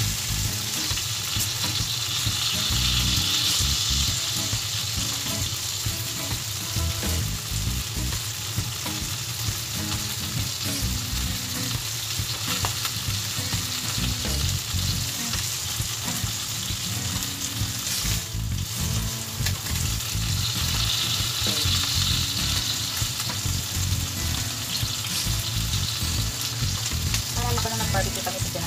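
Marinated chicken pieces sizzling steadily on a round grill pan, with metal tongs clicking and scraping against the pan now and then as the pieces are turned.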